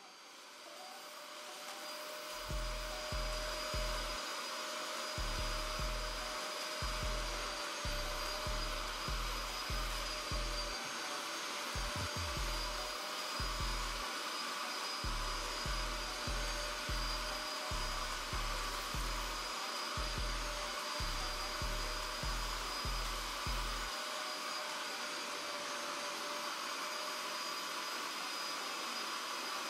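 Bissell SpotClean portable upholstery extractor running steadily, a suction-motor hiss with a thin whine, as its clear hand tool is drawn over cloth car-seat upholstery to suck up cleaning solution.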